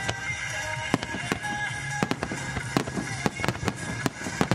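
Aerial fireworks shells launching and bursting in quick, irregular succession, about a dozen sharp bangs, with music playing alongside.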